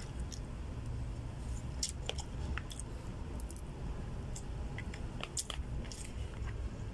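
A person chewing a mouthful of rice and squid adobo, with scattered short clicks of a metal spoon against a plastic food container, over a steady low hum.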